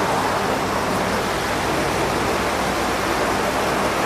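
A steady, even rushing noise with no speech.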